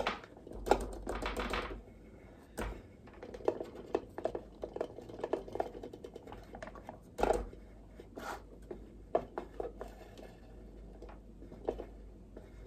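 A clear resonance tube holding cork dust being rolled by hand in its support cradles: irregular light clicks and taps, a cluster of them about a second in and a sharper knock about seven seconds in.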